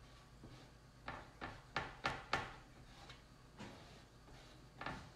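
Plastic squeegee scraping chalk paste across a silkscreen transfer on a metal tray: a handful of short, faint scrapes, most bunched together between one and two and a half seconds in, with a last one near the end.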